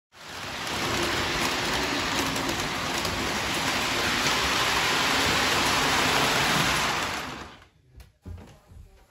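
Steady rushing of heavy rain, fading in over the first second and dying away about seven and a half seconds in, followed by a few faint knocks.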